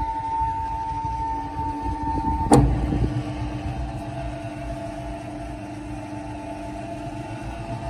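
Diosna SP80 spiral dough mixer running empty, its motor and drive giving a steady whine over a low rumble as the stainless bowl and dough hook turn. A sharp click about two and a half seconds in, after which the whine carries on slightly lower in pitch.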